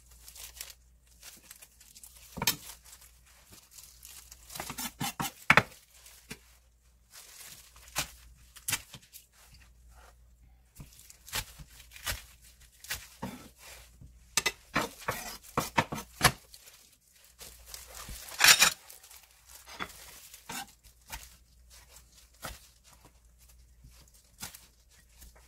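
Chef's knife cutting vegetables on a wooden cutting board: irregular knocks of the blade on the wood, with crisp slicing through shiitake mushroom, spring onion and red pepper. The strokes come unevenly, with a quick cluster of the loudest ones about two-thirds of the way through.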